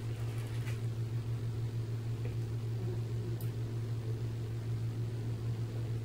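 Steady low hum of running equipment, with a faint click about a second in and another past the middle.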